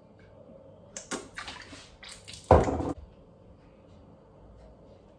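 A woman gagging and retching on a shot of apple cider vinegar, in two bouts, the second and loudest about two and a half seconds in, bringing the liquid back up with a wet splash.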